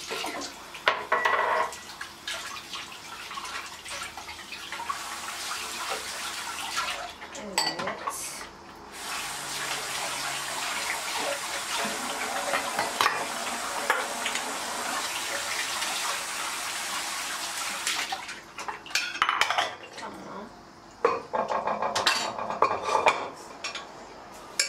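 Dishes, glasses and cutlery clinking and clattering as they are handled at a kitchen sink, with a tap running for several seconds in the middle.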